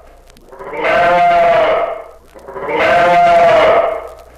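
A ewe bleating two long baas, each lasting about a second and a half: her characteristic call when separated from her lamb.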